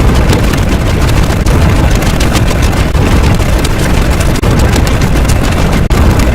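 Loud, continuous rumbling noise with no clear pitch, heaviest in the low end, dipping briefly once near the end.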